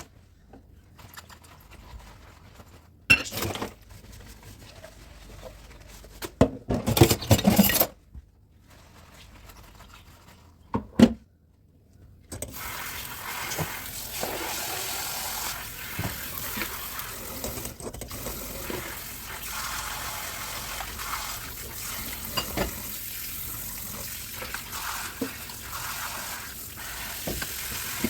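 Dishes handled in a kitchen sink, with a few clattering knocks, then a tap turned on about twelve seconds in and water running steadily into the sink.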